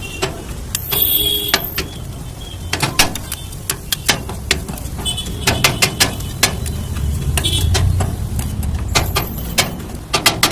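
Busy, noisy ambience: a steady low rumble with frequent, irregular sharp clicks and clatters.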